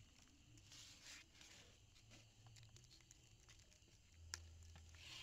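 Near silence with faint wet handling noises: soft rustles and scattered small clicks as a slippery fish is handled in a bucket, with one sharper click a little after four seconds in.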